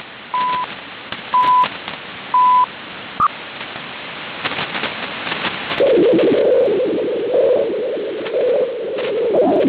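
Shortwave radio received on a software-defined radio: the CHU Canada time-signal station's 1 kHz second pulses, three short beeps a second apart, over static and crackle. About six seconds in, a rough buzzing band of noise comes in and holds.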